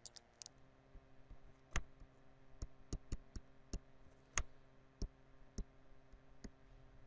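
Stylus pen tapping and clicking on a tablet screen during handwriting: about a dozen irregular sharp clicks over a faint steady hum.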